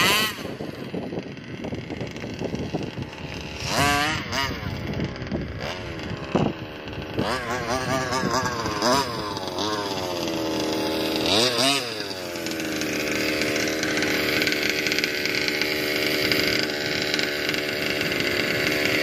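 Two-stroke petrol engine of a Rovan Baja 1/5-scale RC buggy, running on its freshly overhauled carburettor. It revs up and down in several bursts as the buggy drives, then settles into a steady idle about two-thirds of the way through.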